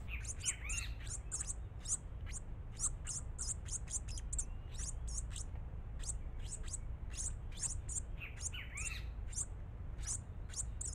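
Small songbirds giving a long run of thin, very high chirps, about three a second. A few lower, slurred calls come near the start and again about eight seconds in, over a steady low rumble.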